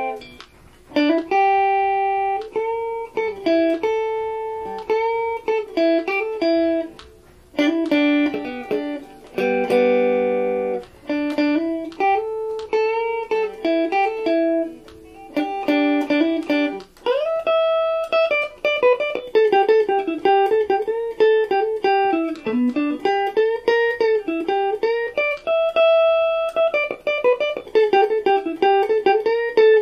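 Stratocaster-style electric guitar played unaccompanied: a single-note melody with string bends and vibrato, a couple of strummed chords about eight and ten seconds in, then a faster run of notes in the second half.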